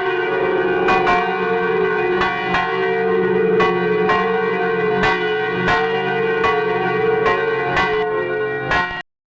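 Church bells ringing, about two strikes a second, each ringing on under the next. The sound cuts off abruptly near the end.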